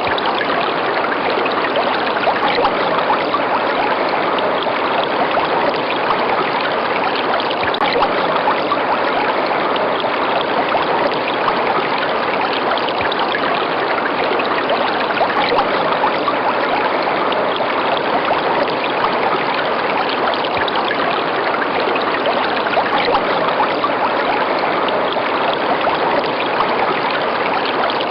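River water rushing and splashing steadily over rocks, an even, unbroken flow.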